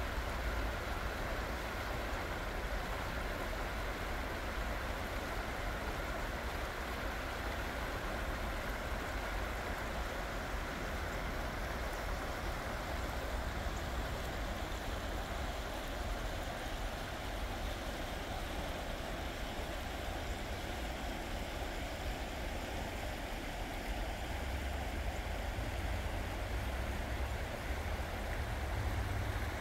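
Creek water rushing steadily over rocks, with a steady low rumble underneath.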